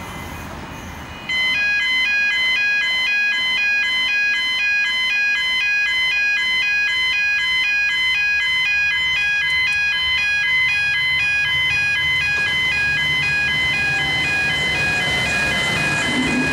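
Electronic chimes ringing in a fast, evenly repeating pattern of alternating tones, switched on suddenly about a second in and then steady. Near the end the low rumble of an approaching VLocity diesel multiple unit grows beneath them.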